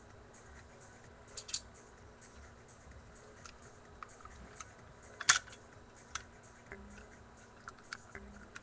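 Scattered light clicks and knocks of airsoft gun parts being handled during disassembly, with a double click about a second and a half in and the loudest, a sharp knock, about five seconds in.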